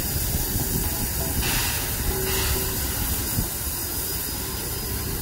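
NSWGR AD60 class Beyer-Garratt steam locomotive 6029 hissing steam from around its cylinders over a steady low rumble. The hiss swells louder about one and a half seconds in for about a second.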